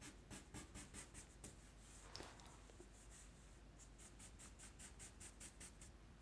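Felt-tip marker scratching on paper in quick, short strokes as fur lines are drawn, faint, about four to five strokes a second, with a short pause a little past halfway.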